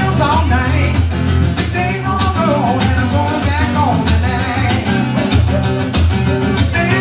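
Live band jam: a singer over guitar, with a heavy low end and a steady beat.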